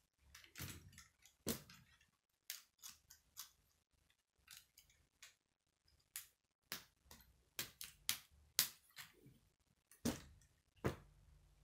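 Plastic K'nex pieces being handled and snapped together: a run of about twenty short, sharp clicks at an irregular pace.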